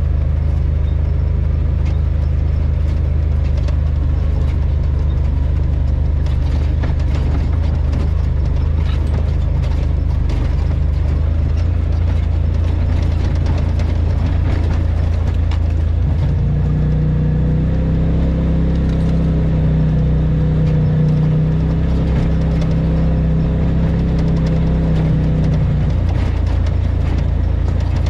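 Polaris RZR side-by-side driving over a rough dirt trail: a steady low engine drone, with clicks and rattles from the vehicle over the bumps. About halfway through, a higher steady tone joins the drone, then drops away near the end.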